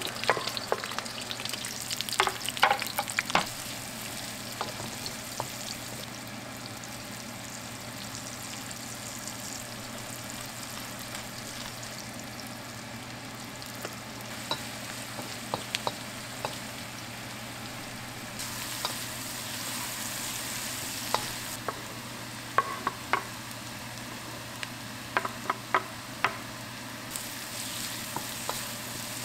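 Sliced onions sizzling as they fry in a hot wok, a steady hiss. A wooden spoon knocks and scrapes in clusters of sharp clicks near the start and again near the end as the food is stirred.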